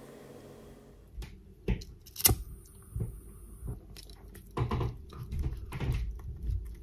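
Sharp clicks and knocks of small hand work, then a lighter clicked on about two seconds in, with a steady high hiss of gas for over a second as its flame melts the end of the stitching thread on a leather sheath. Then rubbing and knocking as the fingers press the melted thread end down into the leather.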